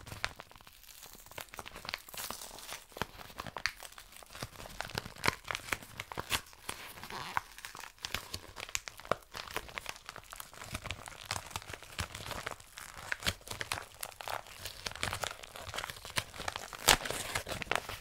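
A yellow package's wrapping being torn open and crinkled by hand, with dense, irregular crackles and rips.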